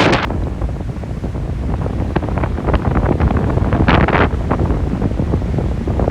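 Strong wind buffeting the microphone in a steady low rumble, with a sharper gust about four seconds in.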